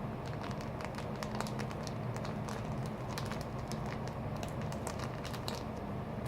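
Light, irregular clicking and crinkling of plastic sauce sachets being handled and squeezed out over instant noodles, over a steady low hum.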